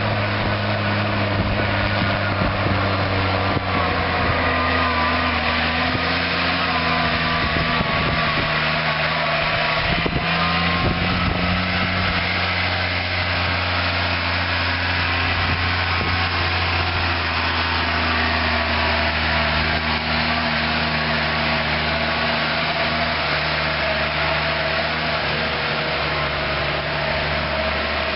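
Diesel engines of silage harvesting machinery running steadily under load, several engines at slightly different pitches heard together.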